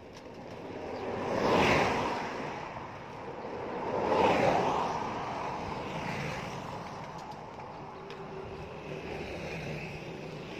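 Traffic on a road: two vehicles pass one after another, each swelling and fading away, about two and a half seconds apart. A fainter, steadier engine sound follows.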